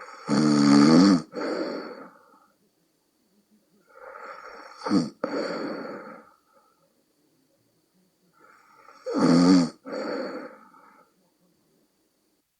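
A person snoring in sleep: three deep, rattling snores about four seconds apart, each a loud low pitched rasp followed by a softer breath. This is the loud snoring that the snorer likens to a bullfrog's call.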